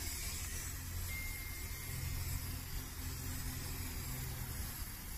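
Aerosol can of brake cleaner spraying in a long, steady hiss onto a rusty rear wheel hub, washing off the grime before a new brake rotor goes on.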